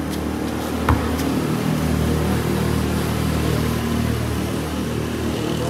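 A basketball bounces once on the concrete court about a second in, over a steady low engine hum.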